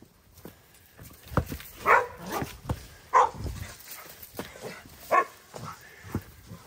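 Three short, loud animal calls: two about a second apart, then a third two seconds later. Knocks and thumps come in between.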